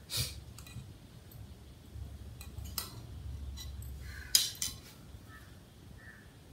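Large steel tailoring scissors snipping through cotton blouse fabric with a few sharp metallic snips, then a louder double clink about four and a half seconds in as the scissors are set down on the stone floor, followed by the soft rustle of cloth being handled.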